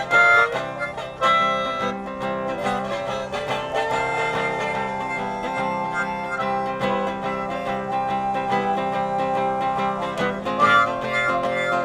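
Instrumental music led by plucked guitar strings, with notes picked in quick succession and no singing.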